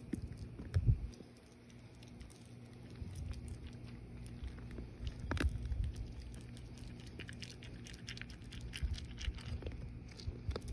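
A white-tailed deer eating dried corn kernels: a run of small crunching clicks as it picks up and chews kernels from the pavement and from a hand. There is a low thump about a second in.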